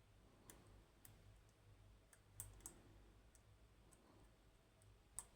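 Faint, scattered small clicks of a lock pick probing pins inside the Anbo X18 lock, with a sharper click near the end.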